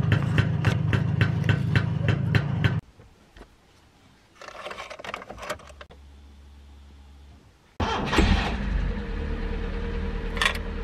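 Polonez's Rover 16-valve four-cylinder engine running with a regular tick about four times a second, cut off just under three seconds in. After a pause with some rustling and a brief low hum, the engine is cranked, catches at once about eight seconds in and settles into a steady idle.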